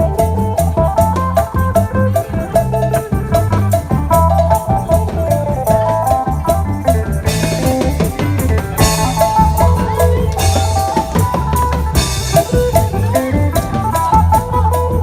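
Isan band music led by a phin, the Thai plucked lute, over drum kit and bass with a steady beat. Splashy high cymbal-like percussion comes in several times in the middle.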